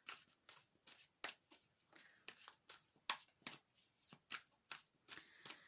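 A deck of tarot cards being shuffled by hand: a run of sharp, irregular card flicks and slaps, a few a second.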